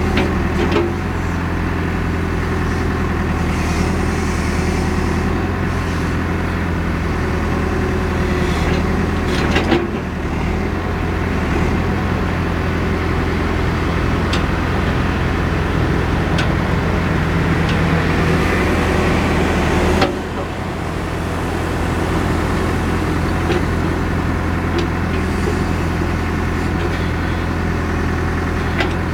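Caterpillar 430D backhoe loader's diesel engine running steadily, heard from inside the cab, with a few sharp knocks from the machine working: one near the start, one about ten seconds in and one about twenty seconds in.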